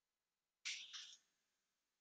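Near silence broken by two faint short clicks about a third of a second apart, a little over half a second in: computer mouse clicks while drawing in CAD software.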